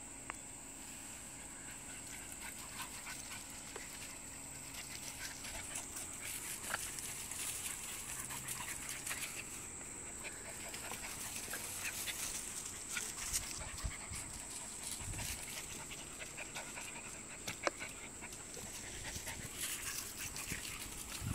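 Two small dogs play-fighting on dirt and dry leaves: scuffling and rustling with many short clicks, along with the dogs' own breathing and vocal noises.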